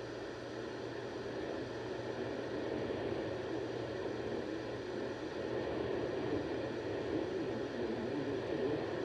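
Radio static: a steady hiss from a radio receiver tuned between broadcasts, with a low steady hum under it, growing slightly louder a couple of seconds in.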